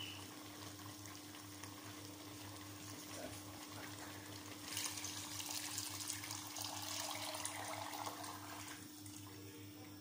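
Thick palm-fruit (banga) extract poured from a pot into a stainless steel pot of meat stock, a splashing, glugging pour that starts about halfway through and lasts about four seconds, over a steady low hum.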